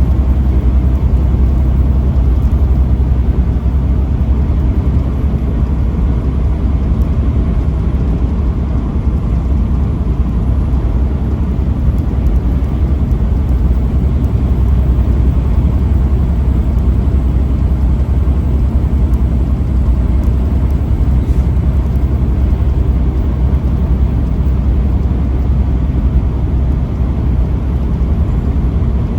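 Truck driving steadily on the highway: a continuous low engine and road rumble.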